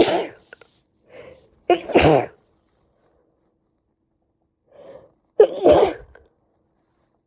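A woman with a cold sneezing three times, each sneeze led by a quick in-breath. One sneeze comes at the start, another about two seconds in, and the third nearly four seconds after that.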